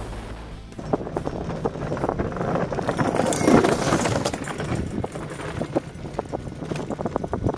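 Iceboat's runners rattling and hissing across the ice as the boat passes close by, loudest about three and a half seconds in, with quick irregular clicks continuing as it sails off.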